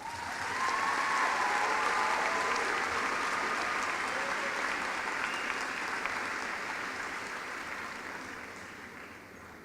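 Large audience applauding in an arena after a speech, with a few cheers near the start. It swells within the first second, holds, then slowly dies away toward the end.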